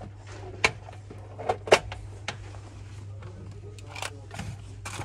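A handful of short, sharp clicks and knocks as objects are handled and a tin box is lifted off a glass display shelf, over a steady low hum.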